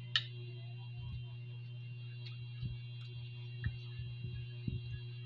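A metal spoon clinks sharply against a plate just after the start, followed by a few fainter clicks and soft thumps, over a steady low hum.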